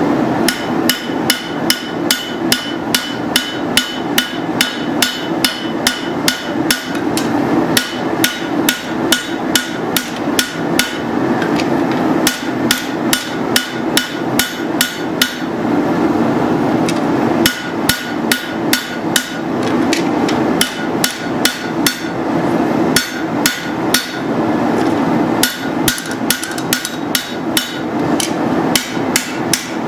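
Hand hammer forging a steel machete blade on an anvil: a long run of strikes, about two a second, each with a short metallic ring, with a couple of brief pauses. A steady low rushing noise runs underneath.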